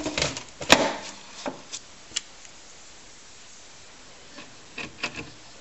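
A sharp knock about a second in and a few light clicks and taps, as of something being handled. Quiet room tone follows, with a couple more taps near the end.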